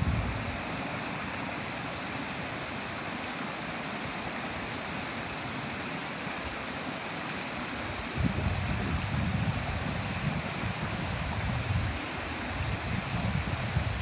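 A shallow mountain creek runs steadily over and between stones, splashing through gaps in a low rock line. From about eight seconds in, gusty wind buffets the microphone with uneven low rumbles over the water.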